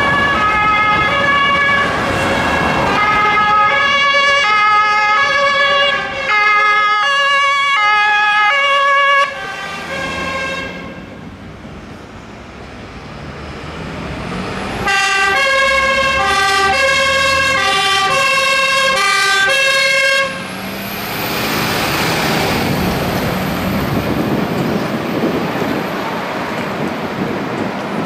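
Two-tone sirens of Vienna fire brigade vehicles, alternating between a high and a low note about every half second as they drive past. The sirens sound for about nine seconds, fall quiet, sound again for about five seconds, then cut off, leaving the fire truck's engine and road noise as it pulls away.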